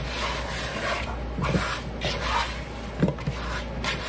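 A hand rubbing and turning raw chicken drumsticks coated in dry spices in a mixing bowl, making a steady rubbing and squishing sound. The drumsticks knock softly against the bowl a couple of times as they shift.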